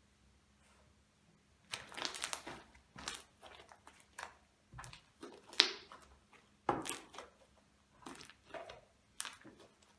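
Fluffy shaving-foam slime with foam beads in it being squeezed and worked by hand, giving irregular crackling, squelching pops in bursts starting about two seconds in.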